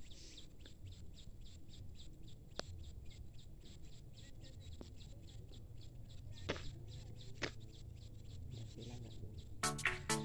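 Birds chirping: a quick, even run of short high chirps, with a few sharper clicks among them.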